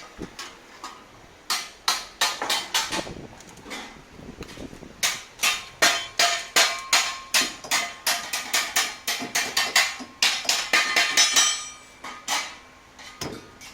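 Hammer blows on the steel body panels of a Datsun 240Z under restoration. The strikes ring metallically and come in bursts, the longest a steady run of about three blows a second through the middle.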